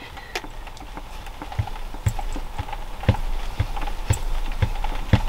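Soft knocks repeating about two a second, over a faint steady hum.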